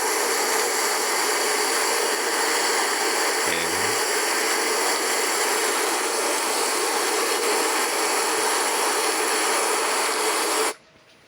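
Heavy rain pouring down, a dense steady hiss of rainfall and running water, which cuts off suddenly near the end.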